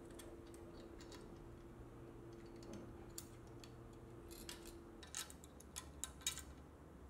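Faint, scattered clicks and light metallic taps of small metal parts being handled: a pulley assembly, its bolt and washers knocking against a linkage bracket as it is fitted. The clicks come thicker near the end, over a faint steady hum that stops about two-thirds of the way through.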